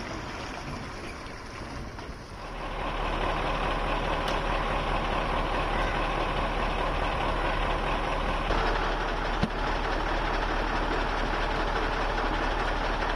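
Heavy goods truck engine running steadily with an even drone. It turns louder and steadier about two and a half seconds in, and there is a single short knock near the middle.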